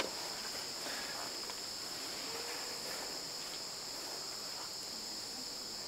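Steady outdoor insect chorus, a continuous high-pitched chirring at two high pitches.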